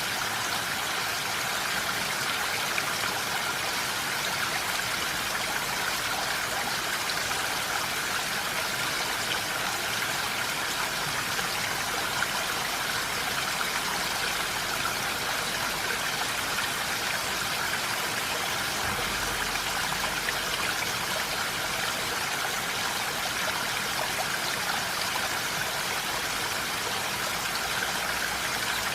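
Steady rain falling: an even hiss of water that keeps up without a break.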